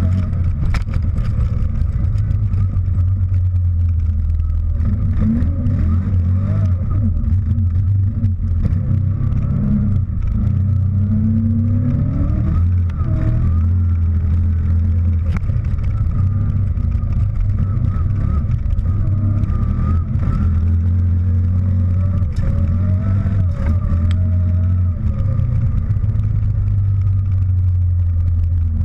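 CF Moto Gladiator X8 ATV's V-twin engine running hard as the quad is ridden, a steady low drone whose pitch rises and falls a little with the throttle.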